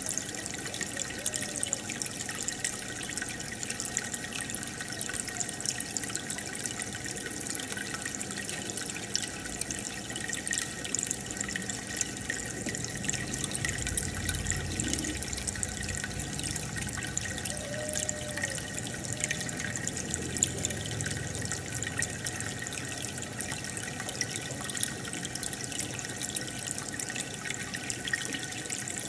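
Aquarium water bubbling and trickling steadily from an air stone or filter, with many small pops of bursting bubbles.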